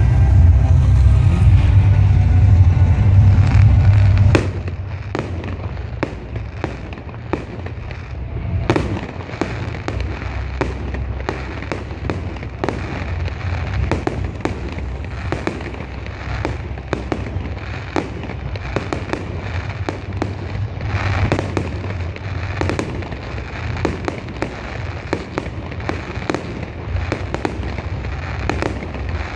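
Fireworks display: a dense run of pops and crackling bursts, several a second, with louder bangs now and then. A loud low rumble covers the first four seconds and cuts off suddenly.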